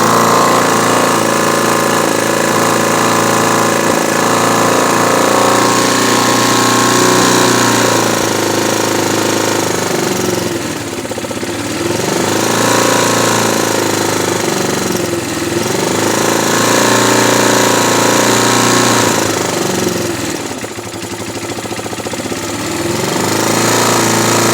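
Chinese ATV engine idling steadily right after starting, running well, its note dipping and recovering about three times.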